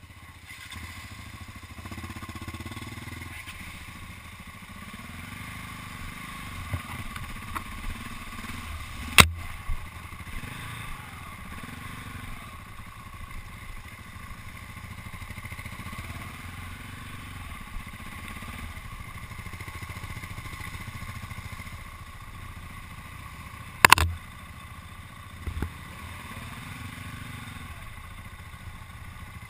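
KTM EXC enduro motorcycles' single-cylinder four-stroke engines running at low, varying revs while picking along a rutted mud lane. Two sharp knocks, one about 9 seconds in and a louder double one about 24 seconds in.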